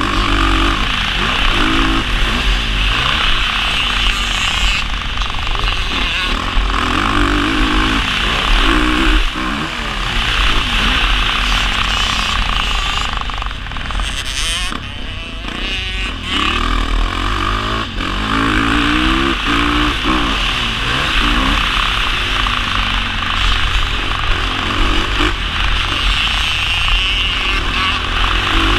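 Honda CRF450 motocross bike's single-cylinder four-stroke engine revving up and down hard through the gears, its pitch climbing under throttle and dropping at each shift or roll-off, with heavy wind buffeting on the helmet-mounted camera. About halfway through the engine backs off and goes quieter for a couple of seconds before pulling hard again.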